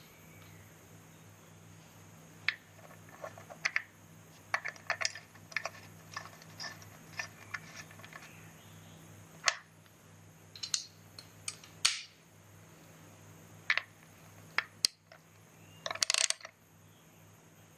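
Spanner clicking and clinking on the lock nut of a Suzuki GS750's clutch release adjuster screw as the nut is tightened to lock the adjustment: scattered sharp metal clicks, a quick run of them a few seconds in and another near the end.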